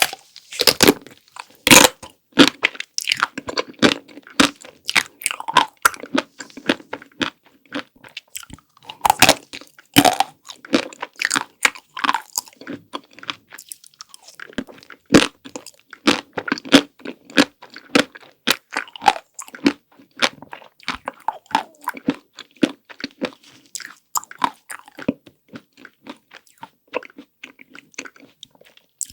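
Close-miked eating of chocolate desserts: many sharp crunching bites and chewing, coming irregularly, with a short pause about halfway.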